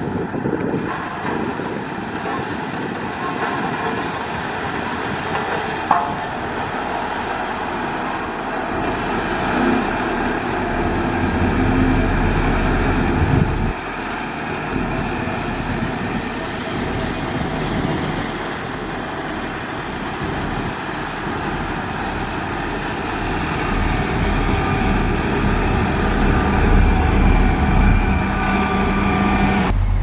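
Heavy road-construction machinery running: the steady diesel engine noise of a motor grader at work spreading gravel. There are a couple of sharp clicks near the start, and a deeper engine hum grows louder in the second half.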